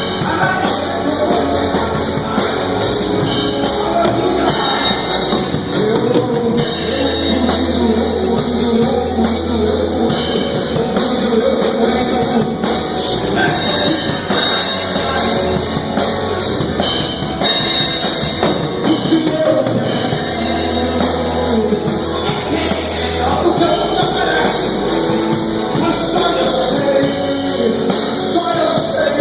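Band music with a drum kit and singing.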